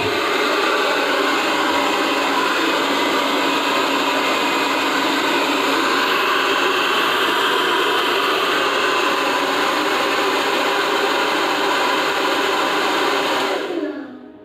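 Handheld hair dryer running at a steady level, blowing a loud, even rush of air. Near the end it is switched off and winds down.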